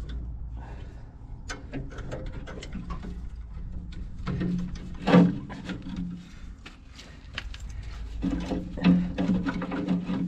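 Irregular clicks and knocks of tool work on the loader's metal parts, over a steady low hum, with a steady droning tone coming in twice, about four seconds in and again near the end.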